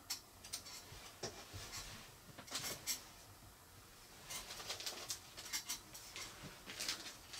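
Faint, scattered rustles and small ticks of fly-tying materials and tools being handled while a composite dubbing loop is set up.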